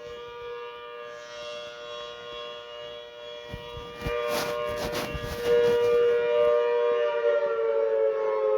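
Civil defence siren wailing: the tone holds at a steady pitch with a second, slightly higher tone alongside it, growing louder about halfway through and starting to slide down in pitch near the end.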